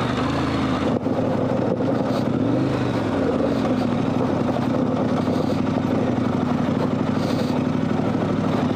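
KTM 1190 Adventure R's V-twin engine pulling the bike up a rocky dirt hill climb, its note wavering in pitch early on and then holding steady.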